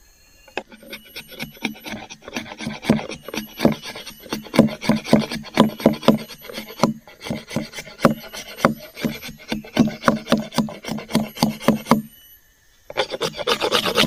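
A machete blade scraping and shaving down a wooden stick in quick, repeated strokes, carving a wooden stirring spoon. The strokes stop briefly about twelve seconds in, then start again.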